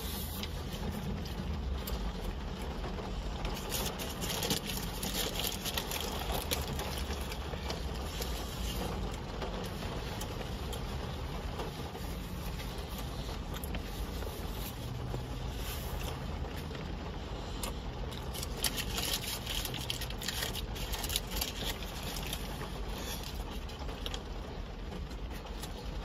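Heavy rain falling on a car's roof and windows, heard from inside the cabin as a steady wash of many small taps over the car's low hum.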